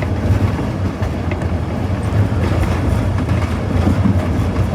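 Inside the cab of an EMD SD40-2 diesel-electric locomotive under way: its 16-cylinder diesel engine drones steadily under power, over wheel and rail noise with a few light clicks.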